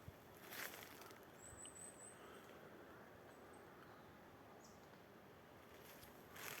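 Quiet forest with a faint, very high, thin bird trill about a second and a half in. A brief rustle sounds about half a second in and again near the end.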